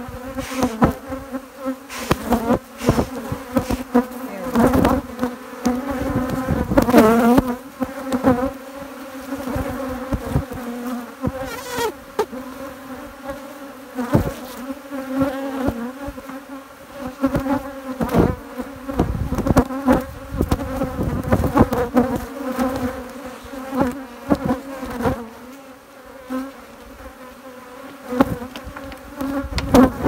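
Honeybees buzzing loudly around an opened hive: a steady, many-voiced hum of bees in flight. Frequent short bumps and knocks break through the hum.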